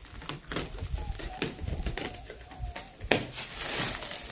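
Clear plastic stretch wrap crinkling and crackling as it is pulled off a plastic kayak, with a longer, louder rustle about three seconds in.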